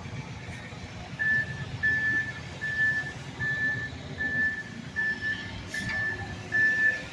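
Construction vehicle's reversing alarm beeping steadily at one high pitch, a little more than once a second, starting about a second in, over a low rumble of heavy machinery.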